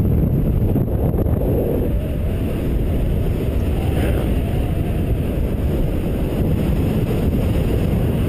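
Steady wind rushing over a camera microphone from the airflow of a paraglider in flight.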